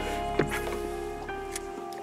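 Background music of held chords that change about every second.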